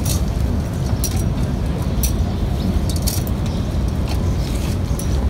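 Metal chains and lid of a thurible (incense censer) clinking as it is handled and swung, in short jingles about once a second, over a steady low rumble.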